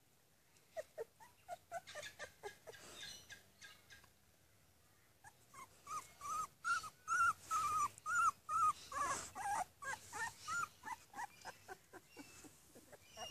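Nearly three-week-old puppies whimpering and squeaking in a long run of short, high cries, with a short pause partway through and louder cries after it.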